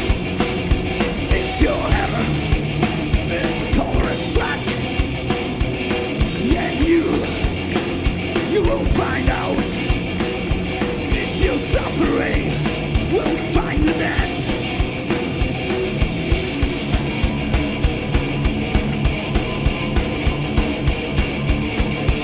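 Thrash metal band playing live: heavily distorted guitars over steady, driving drums, with the drum hits coming evenly several times a second.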